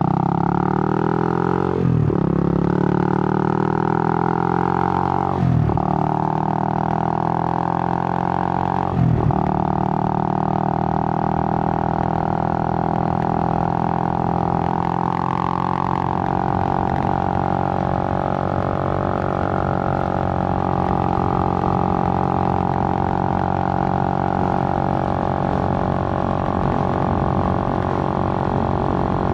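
Suzuki GN125's single-cylinder four-stroke engine under way, with three brief breaks in the first ten seconds as the rider changes gear, then running steadily at a constant speed.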